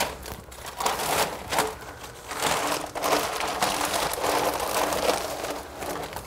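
Newspaper sheets rustling and crinkling as they are gathered up and crumpled off a cage floor, in a continuous run of irregular crackles.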